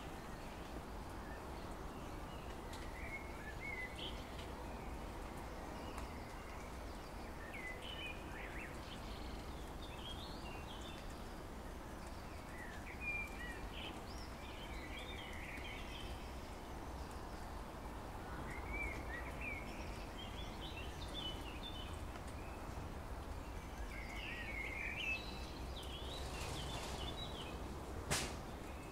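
Songbirds singing short chirping phrases every few seconds over a steady low background rumble and hiss, with a single sharp click near the end.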